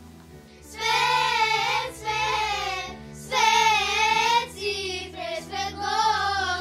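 Children's choir singing a Christmas song in short phrases with brief pauses between them, over a steady low accompaniment.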